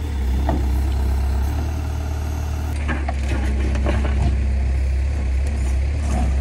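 Case backhoe loader's diesel engine running steadily, with a few short clunks over it.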